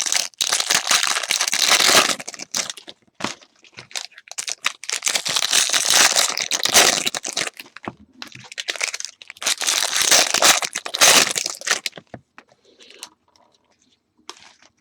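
Foil trading-card pack wrappers crinkling and tearing as packs are ripped open, in three long bursts, fading to faint handling near the end.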